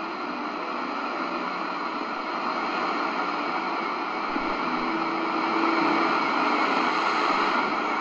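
C.Crane CCRadio SW shortwave receiver on the wide filter, tuned to about 5040 kHz in the 60-metre band, giving a steady hiss of static with no clear station. A faint low tone of a weak signal comes through the noise about five seconds in.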